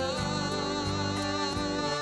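A man singing a long held note with vibrato, accompanied by an acoustic-electric guitar.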